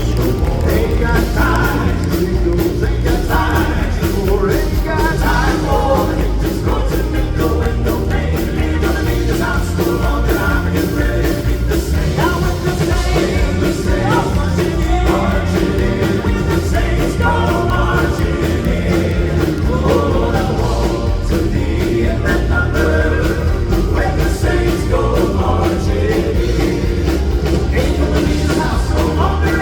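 Southern gospel vocal quartets singing an up-tempo song together, with band accompaniment and a strong bass line.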